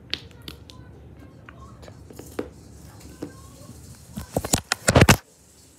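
Handling noise on a handheld camera's microphone. First a few scattered light clicks and rustles, then about a second of loud bumping and rubbing near the end as the camera is swung about, stopping abruptly.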